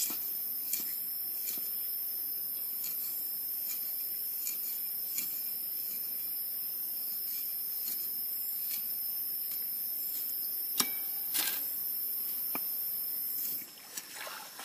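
Forest insects droning steadily at a high, piercing pitch, then cutting off suddenly near the end, with scattered light clicks and a sharper knock shortly before the drone stops.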